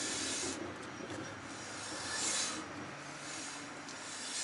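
Ford Transit MK1 rear brake drum being turned by hand, its freshly adjusted brake shoes rubbing lightly inside it with a rasping swish that swells three times. The light drag shows the shoes are set close to the drum.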